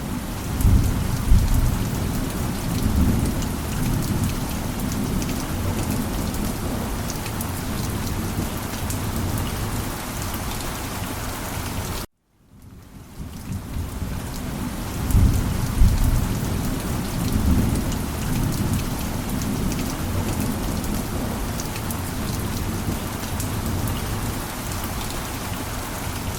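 Heavy, steady rain with a low rumble of thunder about a second in. The sound cuts out abruptly for a moment about halfway through, fades back in, and brings another rumble of thunder.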